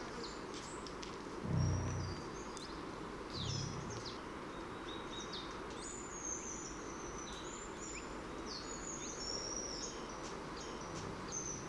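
Outdoor field ambience: small birds chirping and twittering high over a steady hiss, with two short low rumbles about one and a half and three and a half seconds in.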